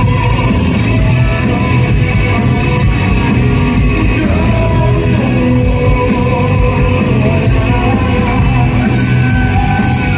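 Post-punk rock band playing live: electric guitars, bass guitar and drums, with a man singing.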